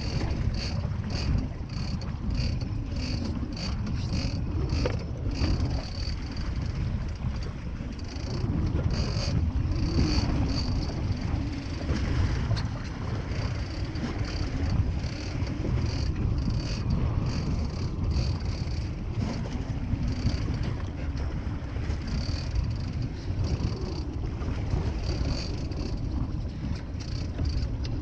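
Wind buffeting the microphone over the low rumble of a fishing boat and water, with a light high clicking repeating about two to three times a second.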